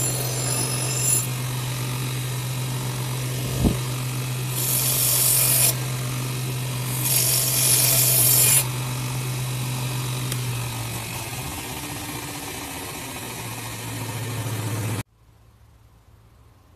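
Bench belt sander motor humming steadily while a blade of coil spring steel is ground against the abrasive belt. Two louder stretches of grinding, each a second or so long, come around the middle, with a single sharp knock just before them. The sound drops off suddenly to a faint background near the end.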